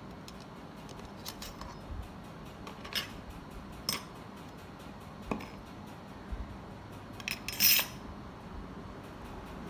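Brass drafting instruments handled in a wooden case: scattered light metallic clicks and clinks, then a louder clattering scrape about three-quarters of the way through as a flat brass piece goes back into its slot.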